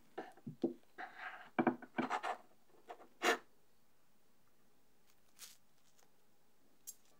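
Kitchen knife cutting through a jelly-topped mousse cake and its sponge base: a quick series of short scrapes and taps, some of them the blade against the ceramic plate. They are bunched in the first three and a half seconds, followed by a few faint ticks.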